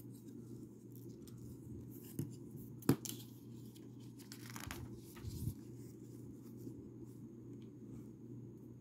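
Plastic Lego pieces being handled during a build: a few sharp clicks, the loudest about three seconds in, and a short rustle just before the last click, over a steady low hum.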